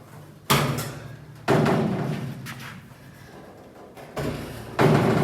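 Heavy steel door of a 1974 Ford F250 clunking as it is worked off its hinges: four sharp knocks with a short ring, two about a second apart, then two close together near the end.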